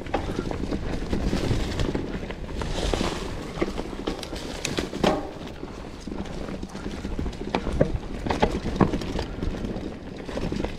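Mountain bike rolling down a dirt trail strewn with dry leaves: tyre rumble and crunch, with frequent irregular clicks and knocks as the bike rattles over bumps and roots.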